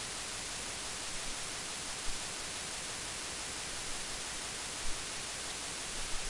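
Steady background hiss, with a couple of faint low bumps about two and five seconds in.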